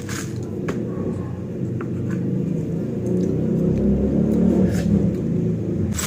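A low rumble that grows to its loudest about three to five seconds in, with a few faint clicks over it.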